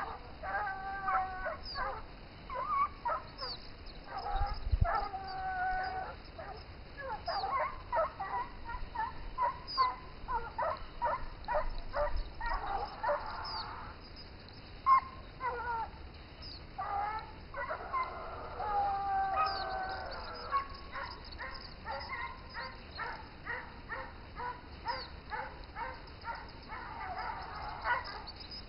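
A pack of hunting dogs baying on a wild boar's trail: quick runs of barks, broken by a few longer drawn-out bays.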